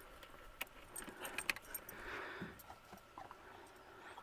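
Faint, scattered light clicks and small metallic rattles, the sound of small hardware or connectors being handled.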